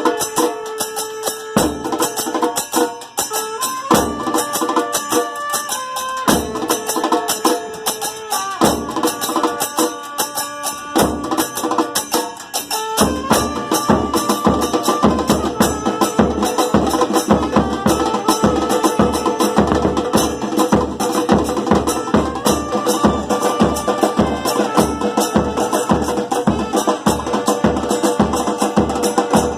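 A batucada percussion group playing a cumbia-style piece: hand percussion with a wood-block-like click and tambourine jingles under a melody of held notes. About halfway through, deep bass drums come in with a steady beat of about two strokes a second, and the groove becomes denser.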